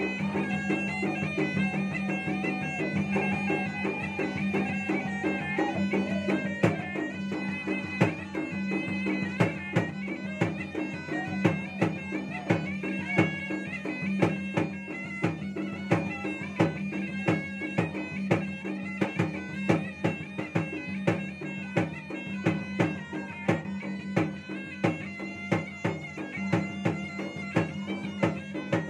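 Makassar gendang ensemble playing: a pui-pui, the nasal double-reed shawm, plays a continuous wavering melody over two hand-beaten double-headed gendang drums keeping a quick, even beat that grows denser after the first few seconds.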